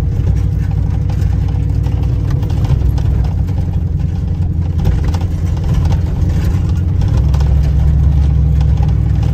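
Pickup truck's engine running and its tyres rolling over a rough, muddy dirt track, heard from inside the cab as a steady low rumble that grows a little louder about seven seconds in.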